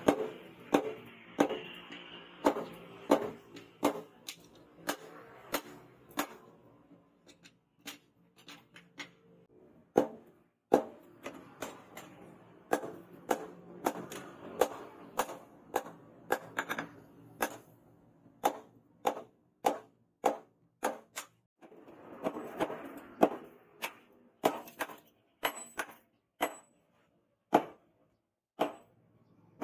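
A hand hammer strikes a red-hot leaf-spring steel billhook blade on a steel post anvil. The blows come about two a second, each with a short metallic ring, with brief pauses between runs.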